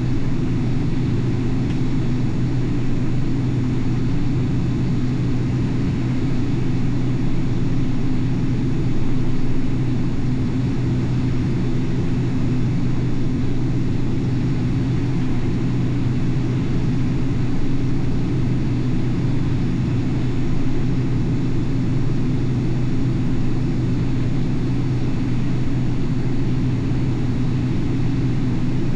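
Combine harvester running steadily during corn harvest: an even, unbroken low drone with a steady hum.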